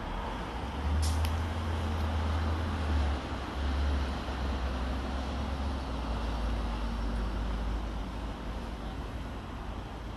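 Road traffic: cars and a bus driving past with a low engine rumble that is strongest for the first several seconds and then eases. A brief hiss comes about a second in.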